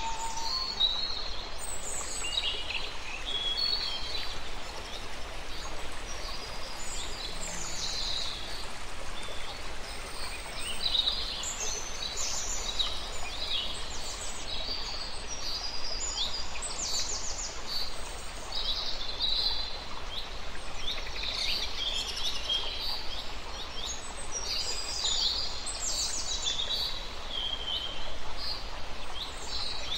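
Many birds chirping and calling, short high calls coming in clusters one after another, over a steady background hiss.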